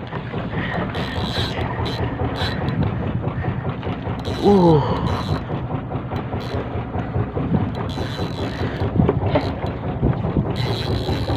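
Boat engine running steadily, with the mechanical clatter of a spinning reel being cranked against a hooked fish. A brief vocal cry comes about four and a half seconds in.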